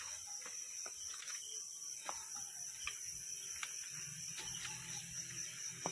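Steady high-pitched chorus of night insects, with scattered faint clicks and rustles.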